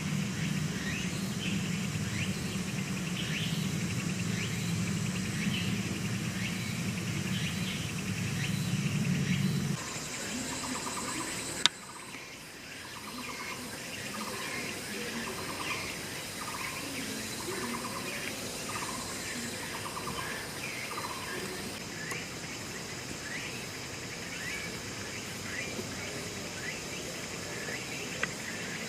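Outdoor ambience of chirping birds and insects. A steady low hum under the first ten seconds stops at an abrupt change marked by a click. After that, short trilled bird calls repeat about once a second.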